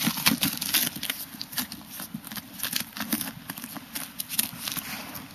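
Footsteps crunching on crusted snow and ice: an irregular run of short crackles and crunches.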